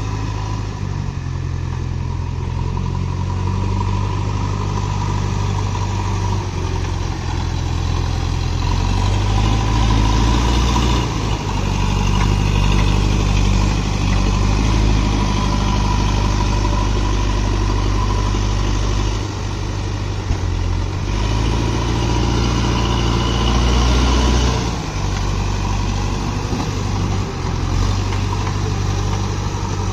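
JCB backhoe loader's diesel engine running, its speed stepping up and down several times as the throttle is opened and eased off, loudest about a third of the way in and again past two-thirds.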